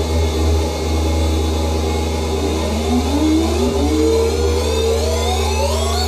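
MFOS Weird Sound Generator analog synthesizer holding a steady low drone with buzzing tones, then from about two and a half seconds in sweeping upward in pitch, the rising glides repeated over one another by a delay pedal.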